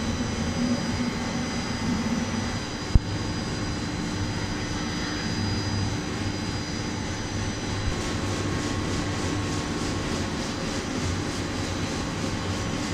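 Steady drone of a running corn flakes production line, its hot-air roaster's fans and motors going, with a few faint steady tones. One sharp click about three seconds in, and the tones shift a little past the middle.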